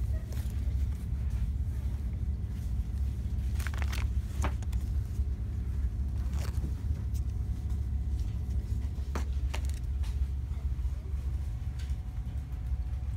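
Steady low rumble of store background noise, with a few light clicks and taps as cardboard cake-mix boxes and plastic frosting tubs are handled on a metal shelf.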